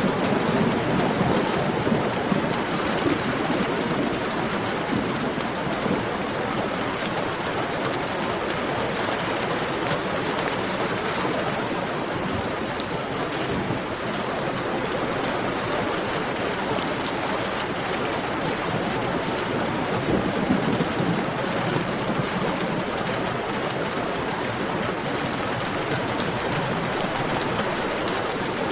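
Heavy rain falling steadily, a dense even hiss of drops. A low rumble of thunder dies away just after the start.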